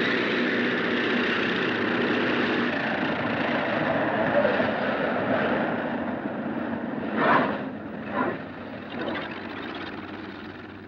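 Propeller airliner's engines droning steadily in flight, slowly fading, with a few brief swells of noise near the end.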